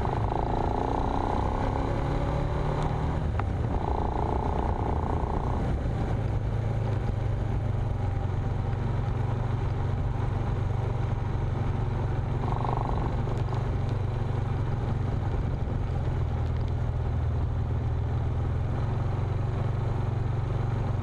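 A vehicle engine running steadily while driving off-road over grass and sand, heard as a continuous low drone with tyre and chassis noise.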